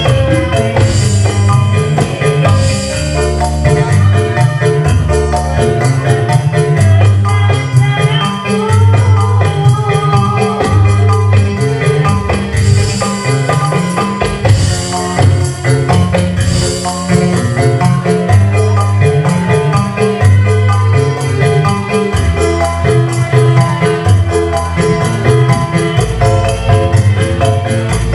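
Live Javanese band music in a fast srepegan rhythm: mallet-struck metallophone notes and tambourine over a stepping bass line, played loud and continuously.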